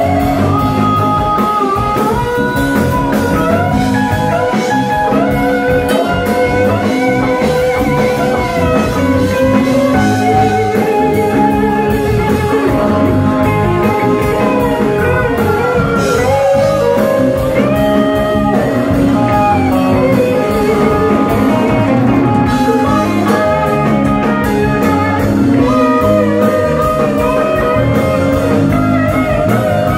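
Live rock band playing loudly: electric guitar and steel guitar lines with many sliding notes over bass and drums.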